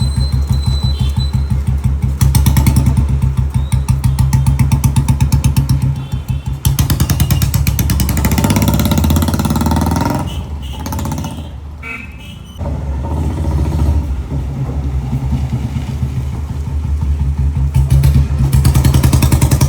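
Old-model Royal Enfield Bullet's single-cylinder engine thumping with an even, pulsing beat. It swells louder around eight seconds in, drops quieter for a couple of seconds, then picks up again.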